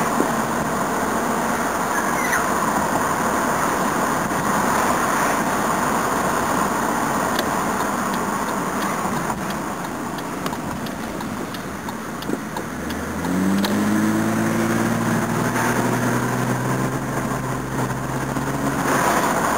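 Cabin noise of a Toyota Cressida being driven, its 5M straight-six engine running smoothly under load with no knock, over steady road noise. About 13 s in, a low engine hum rises a little in pitch as it comes in.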